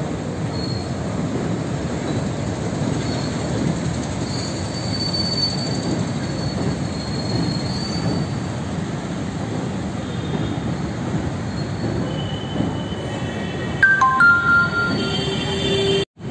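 Train crossing a steel truss bridge overhead: a steady rumble with thin, high wheel squeal coming and going, growing louder and shriller, with several squealing tones at once, about fourteen seconds in.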